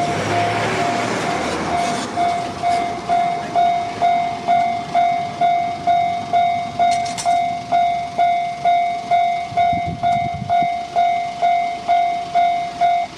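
Japanese railway level-crossing alarm ringing in a steady, evenly repeating tone, a little over two strokes a second. In the first two seconds a train rumbles past the crossing, then the alarm rings on alone.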